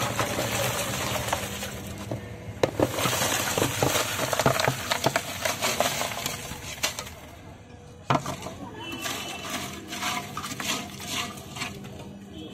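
Crushed ice sliding out of a metal basin and clattering into a clay pot onto metal kulfi moulds, packing them in ice to freeze. A dense rush of knocks and clinks for the first several seconds, then a sharp knock about eight seconds in and a few scattered clinks.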